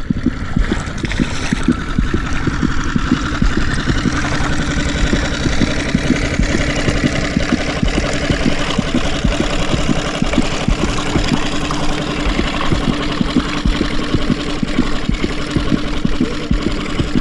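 Small boat's outboard motor running steadily, with wind buffeting the microphone and water noise.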